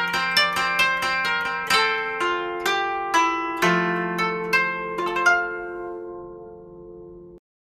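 Background instrumental music: a gentle melody of plucked string notes over a held low note. The last notes ring out and the music cuts off about seven seconds in.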